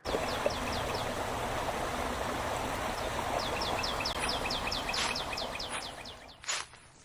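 Steady rushing, like a stream, with a bird giving short falling chirps, a few at first and then a quick run of about four a second in the middle. It starts abruptly and fades out near the end.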